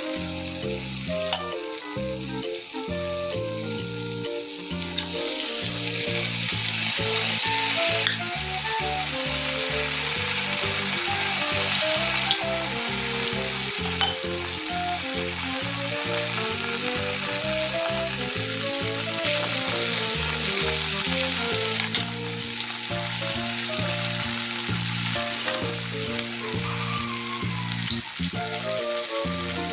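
Tahu aci (tapioca-stuffed tofu) frying in hot oil: a steady sizzle with scattered pops, swelling about five seconds in and again around twenty seconds.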